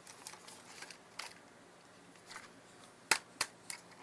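Small clicks and handling noises from the plastic body and parts of a partly disassembled Kodak Z7590 digital camera being turned over in the hands, with two sharper clicks about three seconds in.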